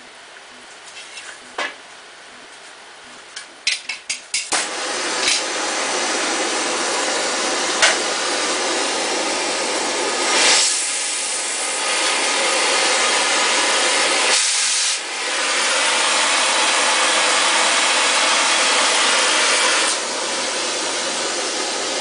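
Harris 43-2 oxy-acetylene cutting torch: a few sharp clicks, then the gas catches about four and a half seconds in and the flame burns with a loud, steady hiss. The hiss surges briefly, dips and comes back stronger, then steps down before it cuts off at the end. The owner thinks the cutting tip needs cleaning and may be what ails the flame.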